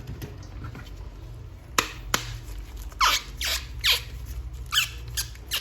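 A string of about seven short, sharp squeaks, each falling in pitch, from a plastic toy figure being rubbed and handled.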